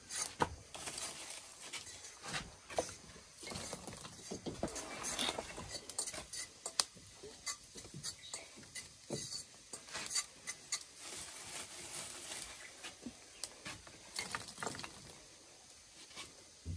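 Metal pots, pans and cooking utensils clinking and knocking against each other in short, irregular taps, with occasional scrapes.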